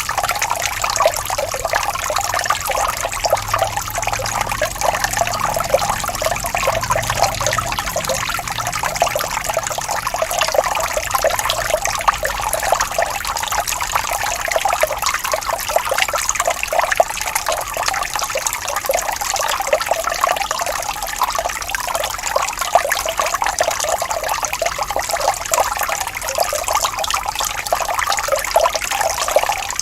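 Falling water splashing and trickling steadily, a dense, even patter without pauses.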